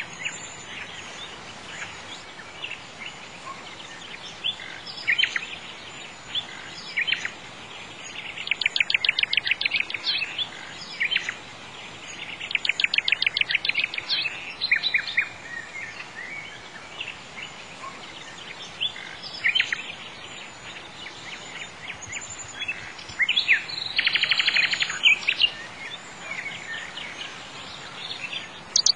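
Songbirds chirping and singing, with rapid trills in three longer bursts, over a steady faint hiss.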